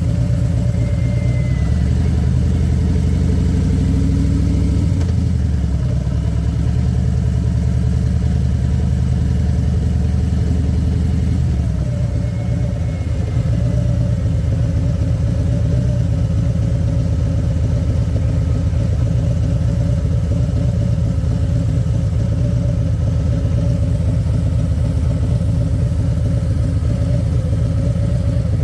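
Harley-Davidson Electra Glide Standard's Milwaukee-Eight V-twin engine running steadily on the road, its note changing about five seconds in and again about twelve seconds in.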